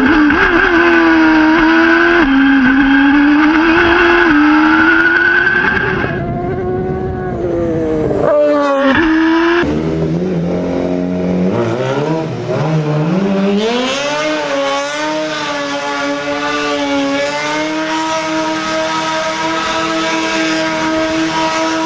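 Yamaha R6 inline-four motorcycle engine running at high revs in a homemade open-wheel racing car, its pitch rising and dipping under hard driving. After a cut about ten seconds in, a Suzuki Hayabusa inline-four in a small pickup truck revs up in rising sweeps and then holds steady high revs while the truck spins donuts, with tyre squeal.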